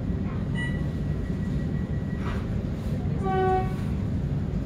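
Steady low rumble inside a stationary High Capacity Metro Train, with a brief chirp about half a second in and a single half-second pitched tone about three seconds in.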